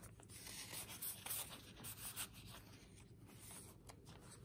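Faint rustling and rubbing of paper as a card is slid into a paper pocket and a handmade journal's page is turned, with a few light clicks.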